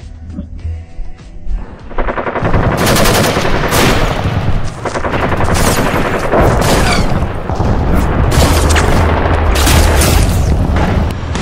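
Bursts of rapid automatic gunfire, loud and dense, starting about two seconds in.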